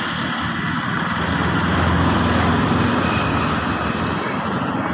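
Road traffic: a motor vehicle's engine running close by, a steady noise that swells slightly about two seconds in and then eases.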